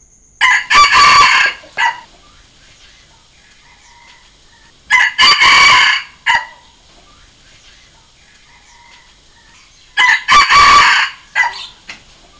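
Red junglefowl cock crowing three times, about five seconds apart. Each crow lasts about a second and a half and is followed by a short separate note, with faint calls in between.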